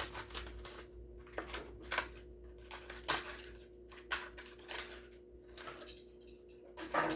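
Irregular crinkles, taps and clicks of a small die-cast toy car and its plastic packaging being handled, with the loudest crackle near the end.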